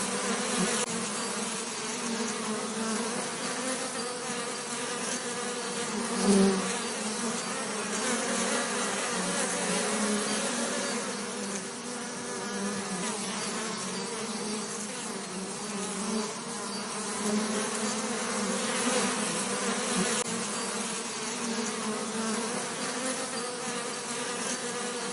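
Bees buzzing steadily, a continuous low drone, briefly louder about six seconds in.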